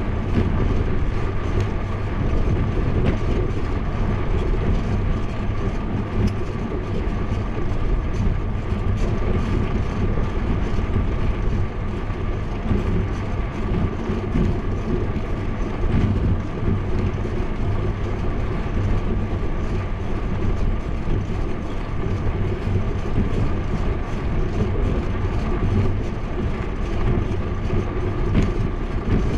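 Steady riding noise from a bicycle on an asphalt road, tyre rumble and wind on the action camera's microphone, with a thin steady whine above it.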